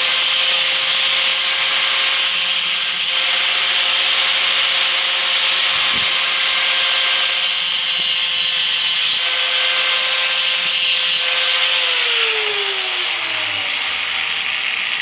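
Handheld electric angle grinder running and grinding metal off the heavy end of a lawn mower blade to balance it. Its motor holds a steady pitch under a strong grinding hiss, with a few harder passes, then winds down about twelve seconds in.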